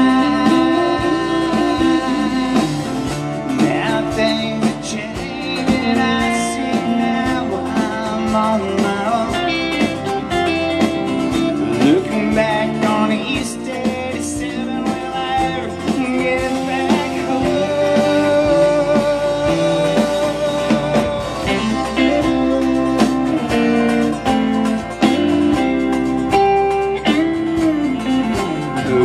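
Live country band playing amplified: acoustic guitar, electric bass, electric guitar and drums.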